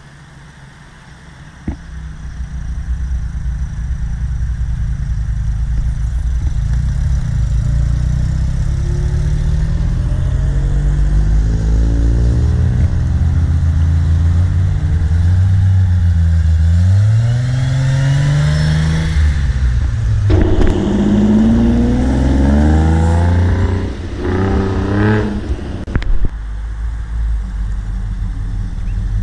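Car engine rumbling as it drives up, quiet at first and loud from about two seconds in. The engine revs up and down several times in the middle and near the end, with a few short knocks.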